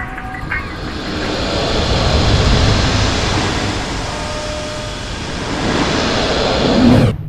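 Thunder rolling after a lightning strike: a long, loud rumble that swells about two seconds in and again near the end, then cuts off suddenly.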